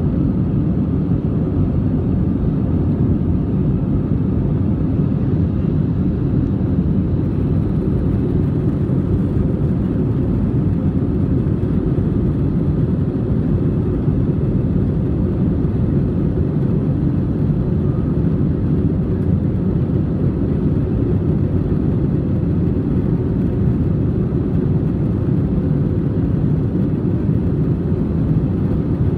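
Steady cabin noise of an Airbus A320-200 climbing out after takeoff: its engines and the rushing airflow heard from inside the cabin over the wing, a deep even rumble that does not change.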